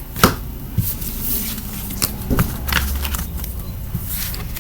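A few sharp taps and clicks with light rustling, like small objects being handled; the loudest tap comes about a quarter second in and another cluster follows around the middle.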